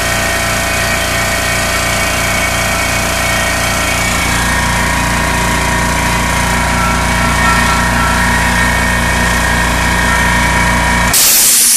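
California Air Tools 4620A twin-tank, 2 HP electric air compressor running steadily with an even rhythm, its sound growing fuller about four seconds in. Near the end a loud hiss of rushing air starts suddenly as the pressure is turned up.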